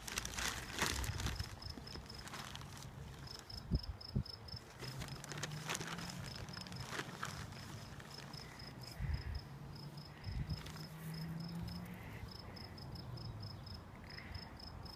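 A cricket chirping in a rapid, even series of short high pulses that breaks off briefly now and then. Over it come scattered rustles and crackles of hands working potting soil and grass, loudest in the first half.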